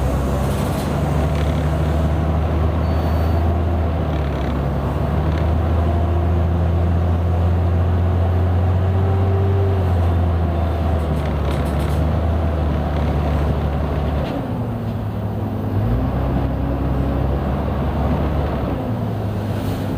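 Mercedes-Benz O-500U city bus's rear-mounted diesel engine running under way through its Voith automatic transmission, with a steady note; about fourteen seconds in the note drops, then rises and wavers again a couple of seconds later.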